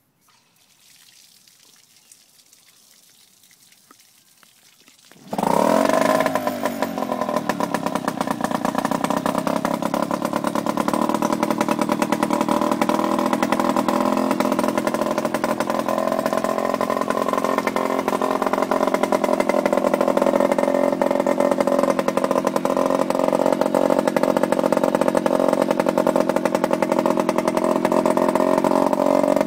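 Mariner 5 hp outboard motor, faint for about five seconds, then abruptly running loud. Its pitch settles within a couple of seconds and it then runs steadily.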